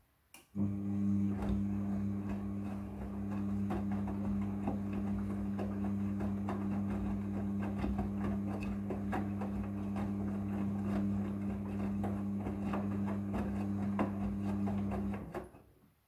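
Midea front-loading washing machine turning its drum with a blanket inside: a click about half a second in, then a steady motor hum with scattered soft knocks as the load tumbles. The hum stops suddenly about a second before the end.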